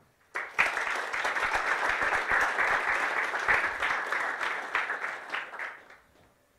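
Lecture-hall audience applauding, starting about half a second in and fading out near the end.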